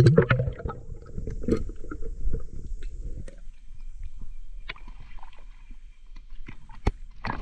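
Water sloshing and gurgling around a diver's camera as the diver moves through the water, with scattered small clicks and knocks. The sloshing is dense for the first few seconds, then thins to occasional clicks, with a sharper knock near the end.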